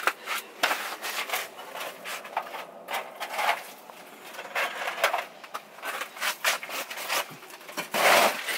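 Irregular rubbing, rustling and scraping with scattered small clicks and knocks: handling and movement noise as someone works bent over a fishing hole inside a fabric ice-fishing shelter. There is a louder rustle near the end.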